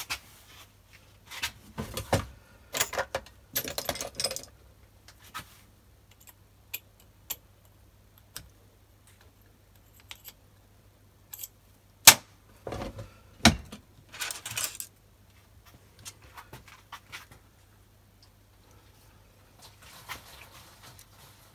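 Small steel tools and parts clicking, tapping and rattling against a dividing head during hand assembly: scattered clicks and short metallic rattles, with one sharp click about halfway through, over a faint steady hum.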